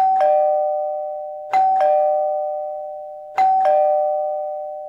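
A doorbell-style ding-dong chime, a higher note then a lower one, sounds three times, about a second and a half to two seconds apart. Each pair rings on and slowly fades.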